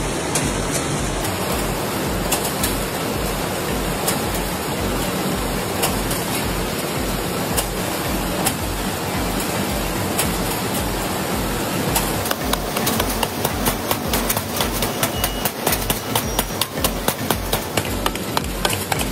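Matchbox factory packing machinery running with a dense mechanical clatter and an even low thump a couple of times a second; from about twelve seconds in, a rapid run of sharp clicks and knocks joins it.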